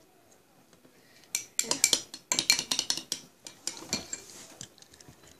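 Metal spoon stirring slime glue and water in a glass bowl, clinking rapidly against the glass. The clinking starts about a second in and thins out near the end.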